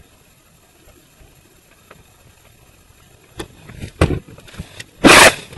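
A laptop computer being knocked and dropped: a few sharp knocks and a heavy thud, then a very loud crash near the end as it hits, picked up by its own microphone.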